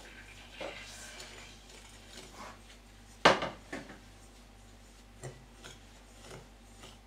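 A utensil stirring egg yolk and powdered sugar in a mixing bowl: soft scraping with scattered clinks against the bowl, one sharp clink about three seconds in.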